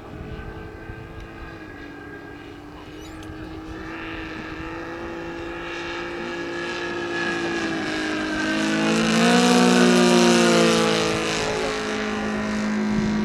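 Saito FG-90R3 three-cylinder radial petrol engine of a large radio-controlled biplane in flight, growing steadily louder as it approaches. About nine seconds in it passes close, its pitch drops and it is at its loudest, then drones on at the lower pitch.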